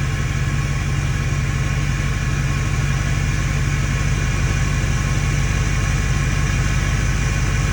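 Ford 6.4 Powerstroke V8 turbo-diesel idling steadily, with an even, rapid diesel pulse.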